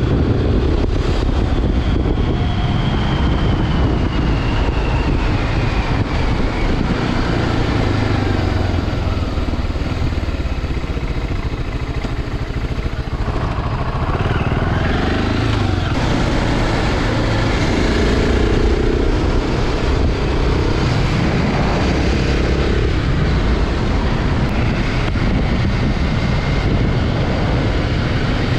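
BMW G650 Xcountry's single-cylinder engine running under way, its note sliding down over the first few seconds and climbing again about halfway through as the throttle changes.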